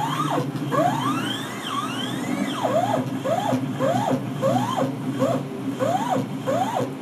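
Drive motor of the Multicam MT22 CNC router's z-axis whining as the cutting head moves up and down. It starts with a few long rising sweeps. Then, from a little before halfway, comes a string of short whines that each rise and fall, about two a second, over a steady low hum.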